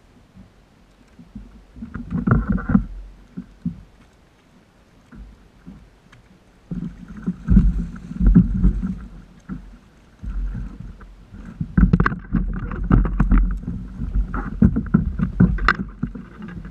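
Water splashing and slapping beside a kayak in three bursts, the loudest about 8 and 12–15 seconds in, with knocks against the hull: a hooked fish thrashing at the surface next to the boat.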